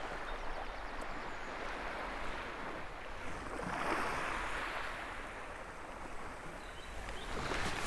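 Small waves lapping and washing over a shallow stony sea shore, a steady wash that swells briefly about four seconds in.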